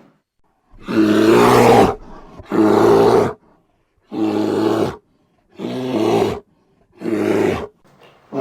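Bear roaring: five roars of about a second each, with short silent gaps between them.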